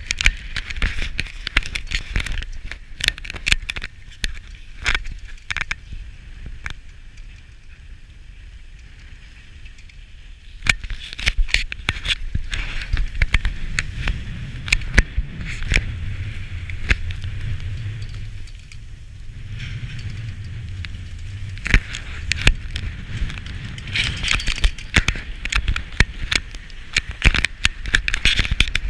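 Skis scraping and chattering over hard-packed, grooved snow while being towed uphill on a drag lift, with many sharp clicks and knocks throughout.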